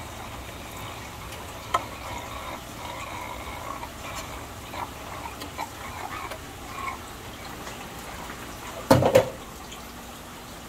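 Aquarium water trickling and splashing over a steady low hum, with scattered small sounds. There is a sharp click about two seconds in and a loud double knock about nine seconds in.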